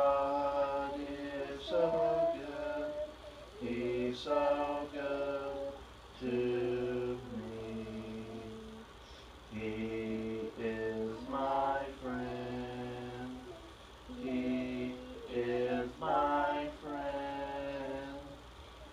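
A family singing a hymn together without accompaniment, in phrases of held notes with short pauses between lines.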